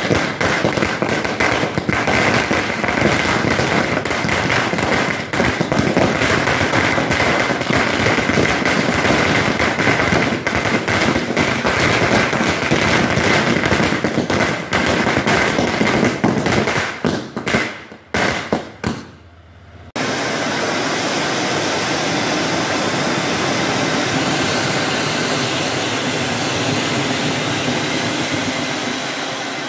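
Firecrackers going off in a rapid, continuous crackle of bangs with a high whistle running under it, thinning to a few separate pops after about seventeen seconds. Then a ground fountain (anar) hisses steadily as it sprays sparks.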